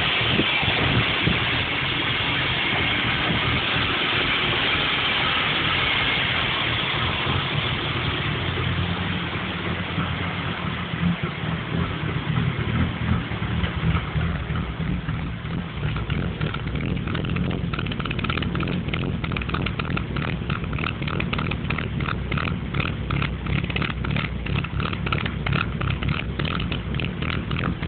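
BMW 325 non-VANOS straight-six idling roughly, its running uneven, with a rapid irregular pulsing in the sound from about halfway on. For the first several seconds a loud rushing noise largely covers the engine.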